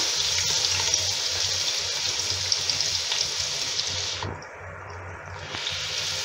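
Sliced onions sizzling in hot oil in an aluminium cooking pot as they are scraped in off a plate: a steady frying hiss with fine crackles that eases off briefly about four seconds in.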